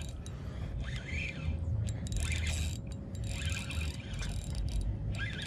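Spinning reel being cranked to bring in a hooked fish, its rotor turning with a light whirring hiss and a few small clicks, over low wind rumble on the microphone.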